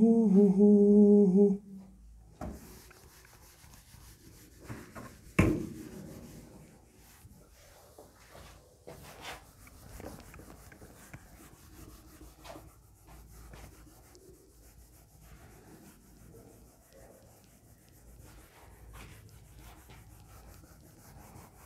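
A man's voice is heard briefly at the start. Then a whiteboard duster rubs across a whiteboard in repeated scratchy strokes, erasing marker writing, with a single knock about five seconds in.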